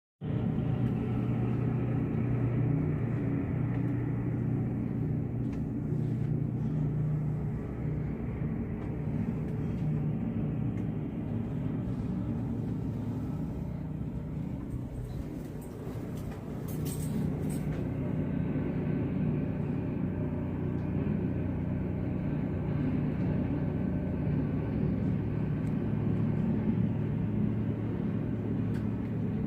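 A vehicle engine running steadily, a low, even rumble.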